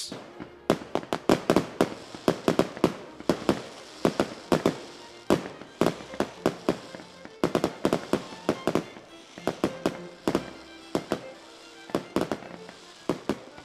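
Fireworks going off in an irregular run of sharp bangs and crackles, with quiet music underneath.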